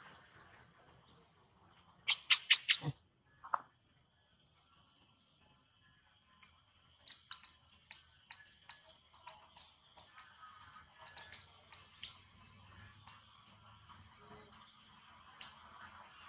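Steady high-pitched drone of forest insects. About two seconds in, four sharp clicks come in quick succession, the loudest sounds here, and fainter scattered ticks follow later.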